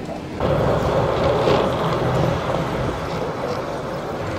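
Longboard with a broken truck rolling and scraping over a concrete floor, a rough steady grinding that starts suddenly about half a second in.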